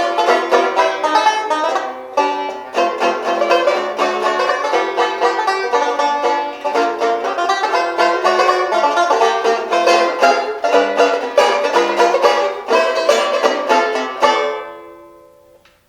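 1927 Bacon & Day Silver Bell No.1 tenor banjo played solo, a fast run of picked chords and single notes. Near the end a final chord rings out and fades away.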